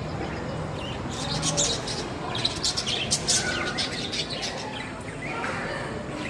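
Small birds chirping: many quick, high chirps overlapping, busiest from about one to three and a half seconds in and picking up again near the end.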